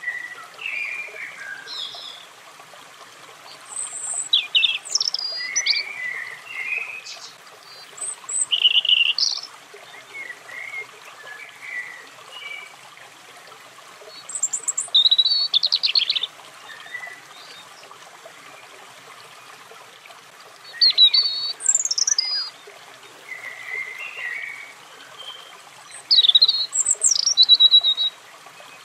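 European robin singing: short, varied, high warbling phrases of a second or two, separated by pauses of a few seconds, over a steady background hiss.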